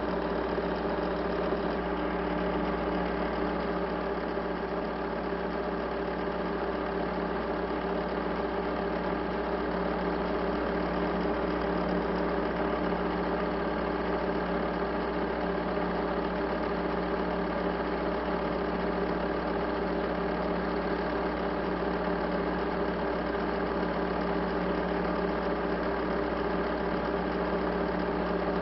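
A steady, unchanging machine-like hum made of several held tones, with no change in pitch or loudness.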